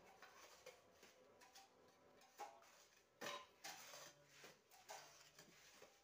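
Faint, scattered scrapes and ticks of a long bar dragged through damp concrete mix, spreading and levelling it in the mould tray of a concrete block press.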